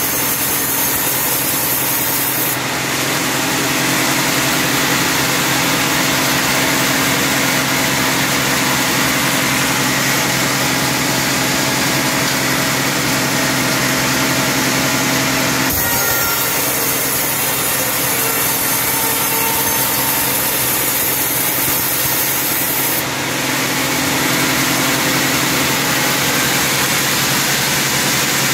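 Vertical band sawmill ripping a teak log lengthwise: a steady, loud sawing noise with the mill running underneath, its tone shifting abruptly a few times.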